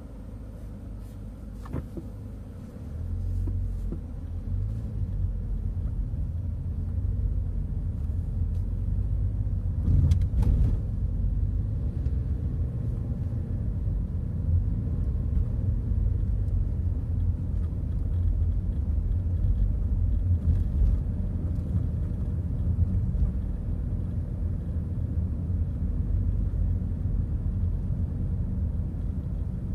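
Car driving slowly along a street, heard from inside the cabin: a low engine and tyre rumble that builds over the first few seconds as the car picks up speed. A few brief knocks stand out, the clearest about ten seconds in.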